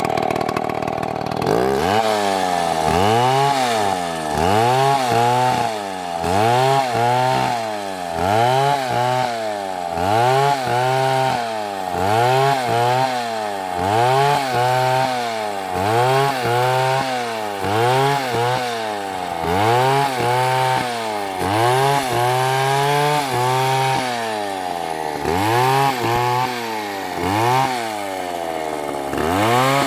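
Large two-stroke chainsaw (MS720) cutting into a big tree trunk. The engine pitch sags under load and revs back up over and over, about once a second, as the saw works through the cut.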